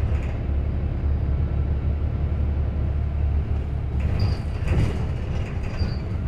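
Engine and road noise heard from inside a moving bus: a steady low drone, with a brief noisier stretch of rattle and road noise a little past halfway.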